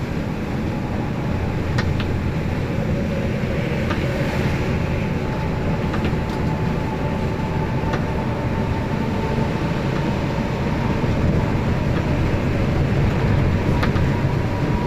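Steady cabin noise of an intercity bus driving at speed on a wet road: a low engine and tyre rumble, with faint ticks about every two seconds.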